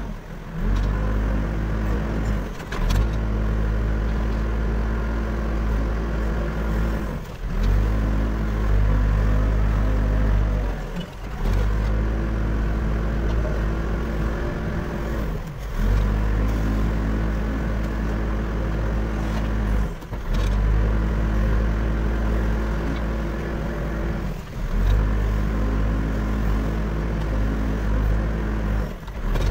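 Backhoe loader's diesel engine running steadily under work, its sound breaking off briefly about every four and a half seconds.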